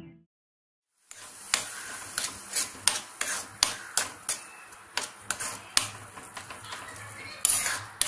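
A metal spoon stirring tomato purée in a steel pan, scraping and clinking against the pan about once or twice a second, starting about a second in.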